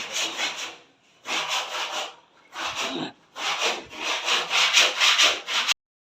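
Wood being cut by hand with a saw, rough rasping strokes in four bursts with short pauses between them, stopping suddenly near the end.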